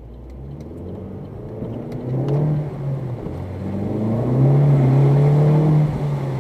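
A motor vehicle's engine revving up, its pitch rising about two seconds in. It then holds steady at its loudest and cuts off shortly before the end.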